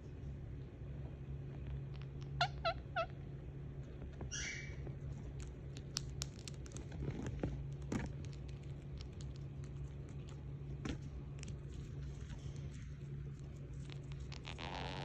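Indian ringneck parakeet giving three quick chirps, then a short higher squawk, followed by scattered light clicks of its beak nibbling at a fabric scrunchie. A brief rustle comes near the end, over a steady low hum.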